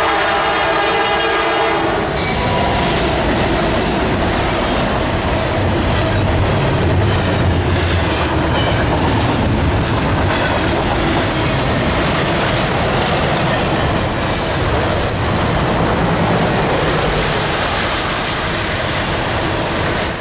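A freight locomotive's multi-note chord horn sounds until about two seconds in. Then the lead GE C40-9W diesel locomotives pass with a low engine drone, followed by double-stack container cars rumbling and clattering over the rail joints.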